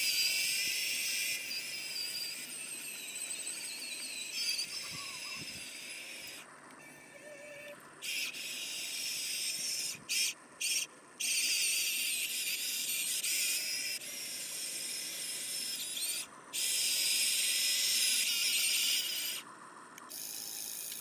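Electric motors of a toy RC excavator whining high-pitched as it drives its tracks and swings its boom. The whine wavers in pitch and cuts off and restarts abruptly several times as the controls are worked.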